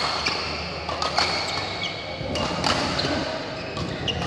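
Badminton rally: rackets hitting the shuttlecock in several sharp smacks about a second apart, two of them close together past the middle, with short high squeaks of court shoes on the mat.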